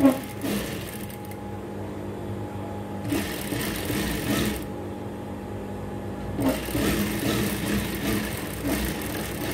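Industrial lockstitch sewing machine stitching two layers of cotton fabric together in three runs: briefly at the start, for about a second and a half midway, and again for the last three seconds. A steady motor hum continues between the runs.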